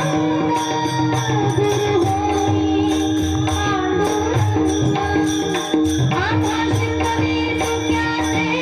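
Marathi devotional bhajan: a female voice sings wavering melodic lines over regular mridang drum strokes and a steady held drone.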